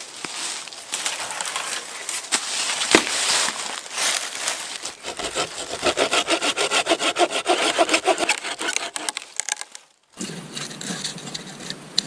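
Hand saw cutting dead wood, rasping back and forth, with one sharp crack about three seconds in. Midway it settles into a fast, even run of quick strokes that breaks off just before the end.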